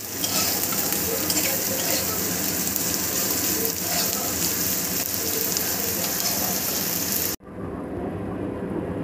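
Julienned vegetables sizzling in hot oil in a kadai as they are stir-fried with a spatula, an even, bright hiss. It cuts off abruptly about seven seconds in, giving way to a duller, quieter background noise.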